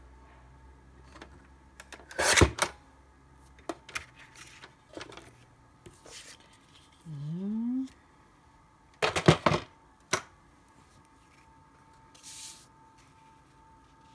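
A paper trimmer's cutting blade is slid through card stock about two seconds in, a short loud scrape. Paper is then handled and pressed down, with a cluster of clicks and rustles after about nine seconds and a brief rustle near the end; a short rising hum of a voice falls in between.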